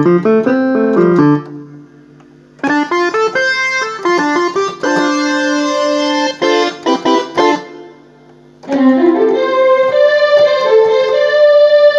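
S-Engine sound module's instrument sounds played from a MIDI keyboard: three short passages of notes with brief pauses between them, as the preset sounds are switched.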